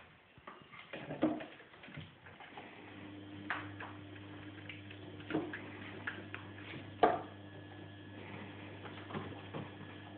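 Scattered light taps, scratches and a few sharper knocks as kittens climb and claw about a carpeted cat tree with sisal posts. A steady low hum runs underneath from about two and a half seconds in.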